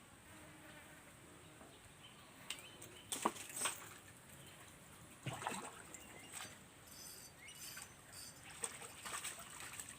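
Scattered short water splashes and knocks a second or two apart, over a faint outdoor background with a few brief high chirps.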